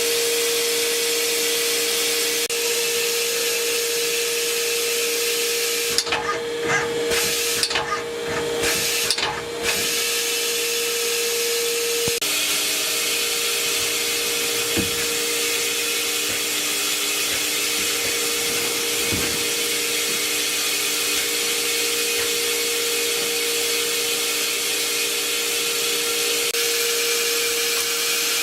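Spinner PD 32 S CNC lathe running: a steady machine hum with a constant tone and a hiss. Between about six and ten seconds in, irregular clunks and rattles break in while the hiss briefly drops.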